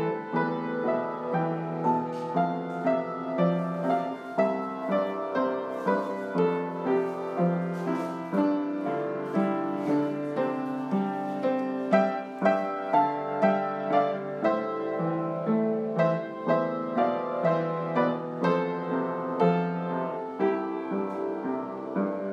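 Background piano music, notes struck at a steady, even pace over a repeating low bass figure.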